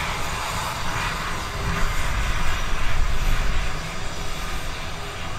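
Taff Vale Railway 0-6-2 tank engine No. 85 moving slowly while shunting, a steady hiss of steam over a low rumble that swells a little in the middle.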